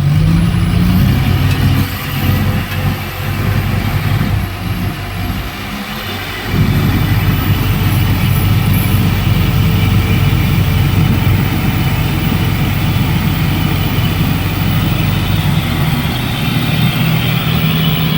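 Diesel engines of heavy earthmoving machinery running. The sound drops back for a few seconds about two seconds in, then is loud and steady again from about six seconds in.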